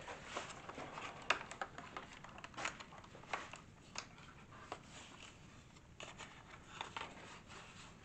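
Faint, scattered plastic clicks and light rubbing as the floor brush head of an Ultenic FS1 cordless vacuum is handled and turned over in the hands.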